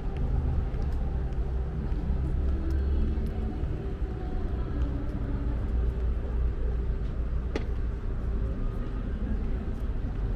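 Street ambience of a busy city station area: a steady low traffic rumble, with one sharp click about seven and a half seconds in.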